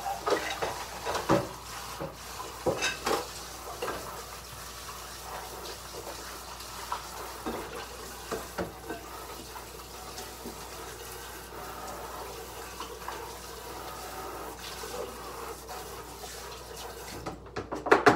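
Kitchen sink faucet running while dishes are washed by hand, with clinks and knocks of dishes in the first few seconds. The water shuts off near the end.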